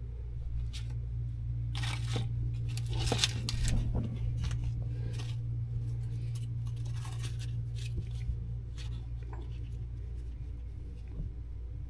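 Scattered clinks, scrapes and rustles of small metal parts and tools being handled during hand assembly work, busiest in the first half, over a steady low hum.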